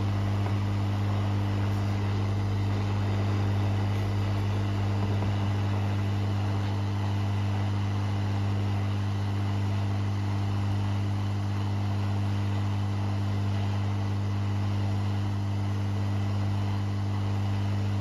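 Hot air rework station blowing hot air onto a chip to melt its solder for removal: a steady electric hum with an even airflow hiss that holds unchanged throughout.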